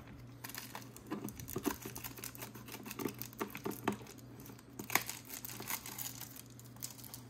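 Foil-faced bubble insulation crinkling and crackling irregularly as it is cut with scissors and pressed and folded down by hand, with one sharper crackle about five seconds in.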